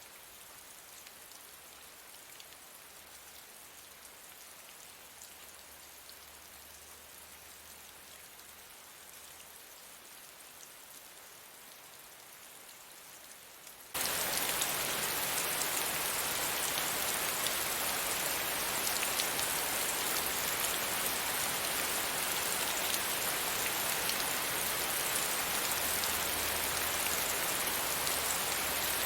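Steady rain falling, an even hiss with no thunder. About halfway through the sound jumps suddenly much louder and holds there.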